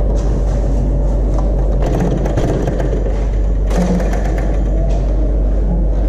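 Handling noise: clothing rubbing and brushing against the phone's microphone, with a few sharper rustles or knocks about two and four seconds in, over a steady low rumble.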